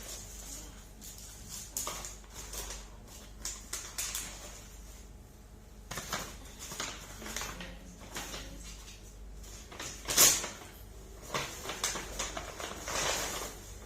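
Gift wrapping and packaging rustling and crinkling as a present is unwrapped, in irregular bursts, with one louder crackle about ten seconds in.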